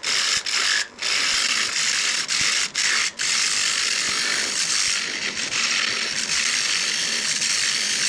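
A hand-held turning chisel cutting into a hardwood blank spinning on a wood lathe, a steady dry scraping with shavings flying off. The cut breaks off briefly four times in the first three seconds as the tool is lifted, then runs on without a break. The turner says his tools are dull.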